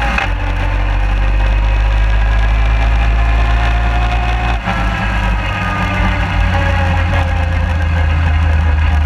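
Suzuki 250 QuadSport ATV running at a steady pace across grass, its engine giving a constant low hum with slight rises and falls in pitch. A single sharp knock comes about four and a half seconds in.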